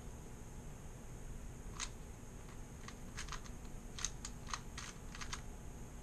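3x3 Rubik's cube being turned by hand: a quick, irregular run of light plastic clicks as its layers are rotated, starting about two seconds in and stopping shortly before the end.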